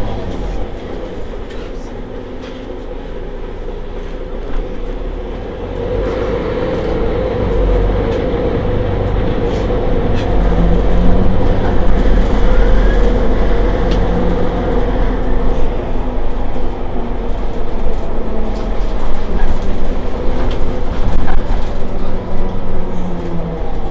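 Mercedes-Benz Citaro G C2 articulated bus standing with its engine idling, a steady low rumble. About six seconds in it gets louder and a steady hum joins it.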